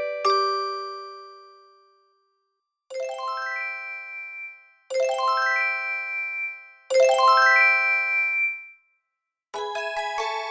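ZTE WeGo (S155) phone's alert tone: a quick rising run of bell-like chime notes, played three times about two seconds apart and louder each time. The last note of the previous tone rings out and fades at the start, and a different chime tone begins near the end.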